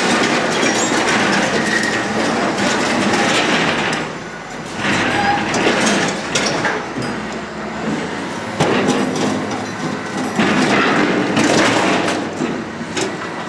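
Wheel loader working a pile of steel wreckage: engine running with metal debris scraping and clanking, and a few sharp metal bangs.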